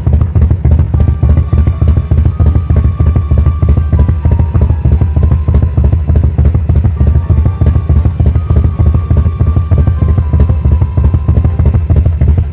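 Harley-Davidson V-twin idling with its loping, uneven 'potato-potato' exhaust beat. A faint melody of music sits over it.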